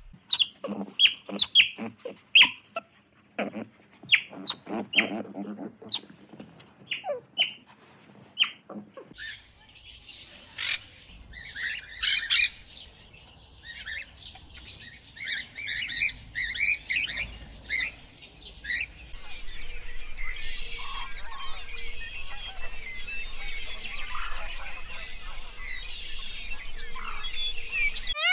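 Bird chirps and short calls come one after another, then louder squawks of macaws in the middle stretch, and finally scattered chirps over a steady hiss.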